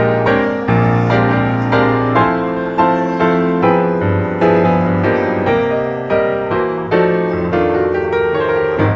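Background music led by piano: a gently paced melody of struck, sustained notes, a new note or chord about every half second.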